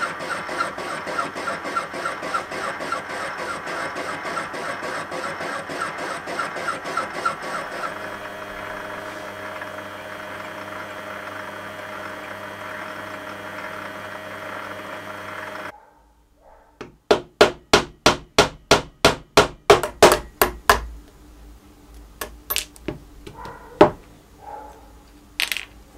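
Metal lathe turning a 1045 steel eccentric shaft, the cut pulsing in a steady rhythm at first and then running more evenly, until it cuts off about two-thirds in. Then a quick run of about a dozen sharp metal taps, followed by a few scattered clicks of small steel parts.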